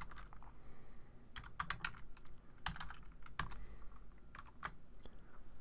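Computer keyboard being typed on: a run of separate key clicks at an uneven pace, with short pauses between groups of keystrokes.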